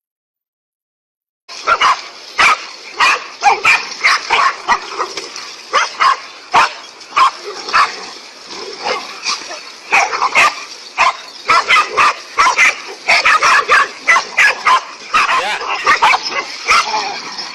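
Animals barking and yelping in rapid, overlapping bursts, beginning abruptly about a second and a half in after silence.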